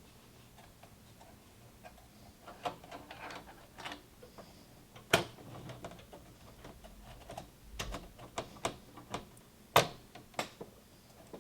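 Irregular clicks and taps of hard objects being handled, starting after a quiet couple of seconds, with two sharper knocks about five and ten seconds in.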